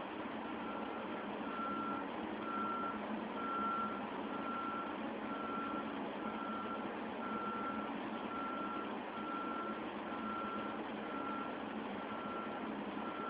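Reversing alarm of a pressure-washing vehicle backing up, a single-tone beep repeating about once a second over a steady background noise.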